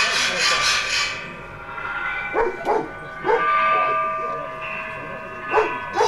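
Metal pieces of the "Interleg Sounds" sound sculpture being played: a dense, rapid rattling and scraping for the first second, then a few sharp strikes, each leaving clear ringing tones that hang on for a second or more.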